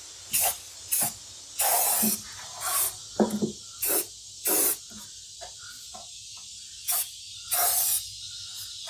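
Aerosol can of black spray paint sprayed onto a steel sheet in about eight short bursts. Each burst lasts from a fraction of a second to about half a second, with pauses between them.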